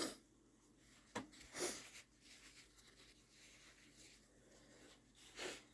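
A person sniffling with a stuffy nose: a short sniff at the start, two more about a second in, and another near the end, with quiet breathing between.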